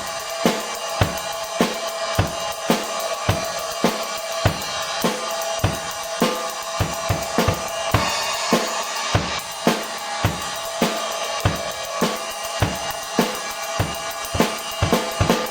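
Drum kit played in a steady groove, with an Armada Achilles AXL cymbal ringing in a continuous wash over kick and snare hits about twice a second. A quicker run of hits comes near the end.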